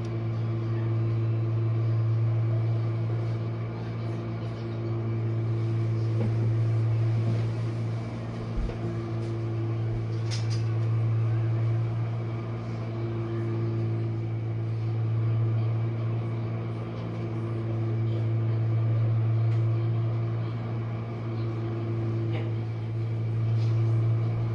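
Jenn-Air dishwasher running mid-cycle: a steady low motor hum that slowly swells and eases every several seconds, with one short tick about ten seconds in.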